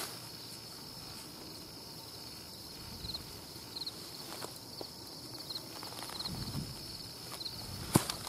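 Steady chorus of crickets with a short chirp repeating about every second, over a few footsteps and rustles on the dirt bank and one sharp click near the end.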